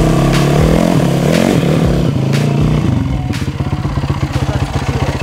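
Yamaha enduro motorcycle engine pulling up at low speed, the revs rising and falling, then settling about three seconds in to a steady idle with an even beat as the bike stops.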